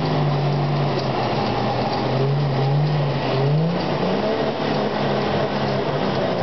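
Off-road 4x4 engine revving up and down repeatedly under load, its pitch climbing and dropping several times, as the vehicle works up a steep dirt climb.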